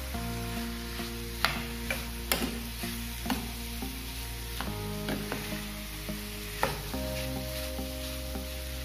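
Metal spoon stirring diced raw papaya through hot oil and chilli masala in a steel pan, with a steady sizzle and sharp scrapes and clicks of the spoon against the pan. Soft background music runs underneath.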